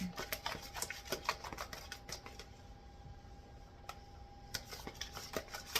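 Spoon stirring chicken and a thick butter-and-seasoning mix in a bowl: a run of quick clicks and knocks against the bowl, thinning out about halfway and picking up again near the end, over a faint steady hum.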